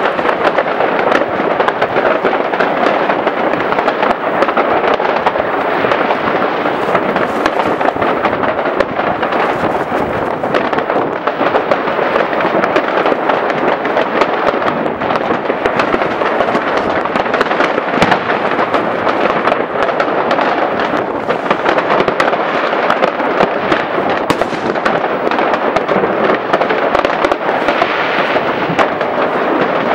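Many fireworks and firecrackers going off at once, countless bangs and crackles running together into one continuous noise with no pause.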